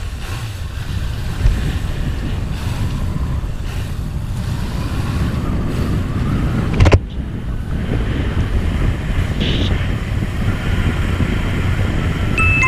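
Motorcycle pulling away and riding along at road speed, its engine running under heavy wind rush on the microphone. A sharp click about seven seconds in is followed by a brief dip in the noise.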